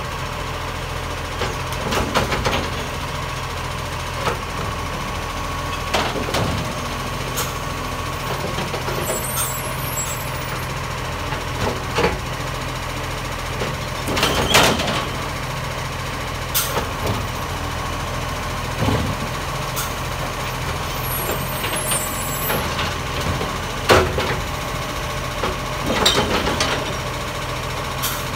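Side-loading garbage truck running steadily, with a thin steady whine over the engine, while its automated arm lifts and tips wheelie recycling bins. Its drone is broken by repeated knocks and clatters as bins bang and recyclables tumble into the body, loudest about 14 seconds and 24 seconds in.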